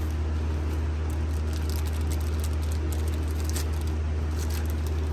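A steady low hum, with faint light clicks and rustling from the new thermostat and gasket being handled.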